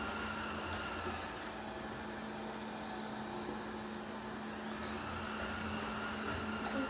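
360 Smart Life S9 robot vacuum cleaner running: a steady motor and fan hum with a constant tone.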